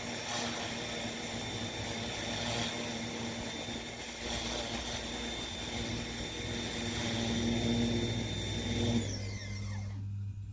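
Pressure washer running, its water jet spraying across the flywire screen and grille of a screen door. About nine seconds in the spray stops and the motor winds down with a falling whine.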